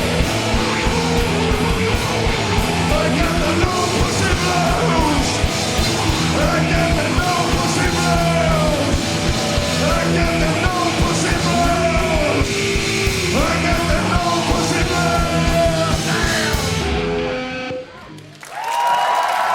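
Loud live rock band playing an instrumental stretch: pounding drums and bass under distorted guitar and wailing, bending instrument lines. The band stops abruptly about 17 seconds in, and audience applause rises near the end.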